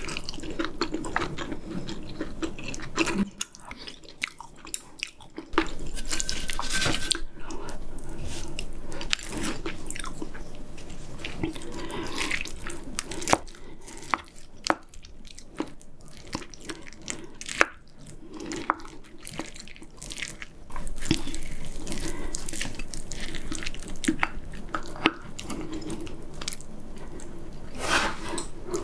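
Close-miked eating sounds: wet chewing and smacking of kimchi stew with pork back ribs and rice, with many short clicks and crackles throughout.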